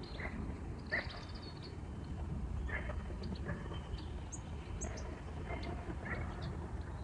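Small birds chirping in short scattered notes, over a steady low rumble.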